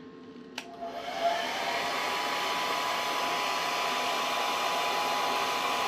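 Hair dryer switched on with a click about half a second in, spinning up over about a second to a steady blowing hiss with a faint whine, running on its lowest setting of about 256 watts.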